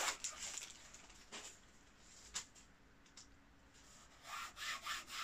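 A hardcover book handled by hand: a few soft taps and rustles, then from about four seconds in a run of quick rubbing strokes, several a second, of hands brushing across the book.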